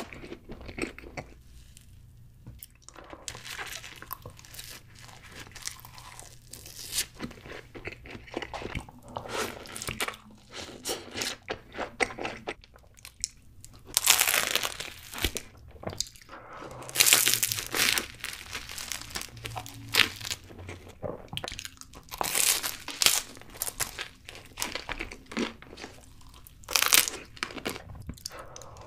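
Close-miked eating of cream-filled pastries: crunchy bites into the bread crust, with chewing in between. The loudest bites come in clusters about halfway through and again near the end.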